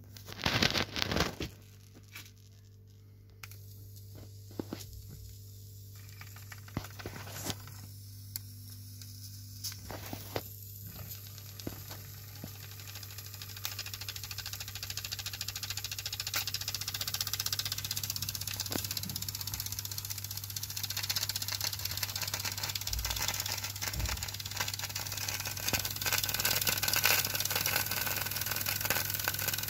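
Mamod MM1 toy steam engine being fired: the metal burner tray clatters as it is slid under the boiler, followed by scattered clicks. From about halfway through, a hiss builds steadily as the burner heats the brass boiler, over a low steady hum.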